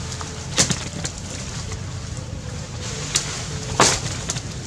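A few short, sharp clicks and snaps, the loudest near the end, over a steady background hiss with a faint steady hum.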